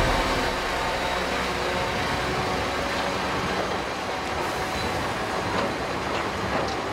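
Heavy diesel demolition machinery running steadily with a metallic rattling clatter, and a few sharp clinks near the end.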